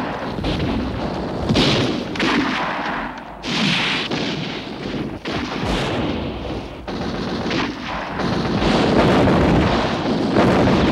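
Battle sounds of gunfire and artillery shell bursts, with sharp shots and booms about every second over a continuous rumble. The firing grows denser and louder in the last few seconds.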